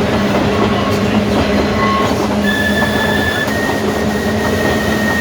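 Manx Electric Railway tramcar running along the track with a steady rumble and low drone. High wheel squeals come in briefly about one and two seconds in, then hold for longer from about two and a half seconds on.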